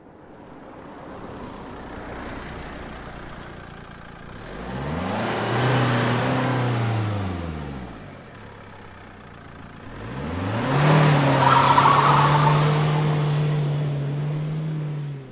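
Car engine rising and falling in pitch twice: a first swell about a third of the way in, then a louder one that climbs, holds steady for a few seconds and drops away at the end.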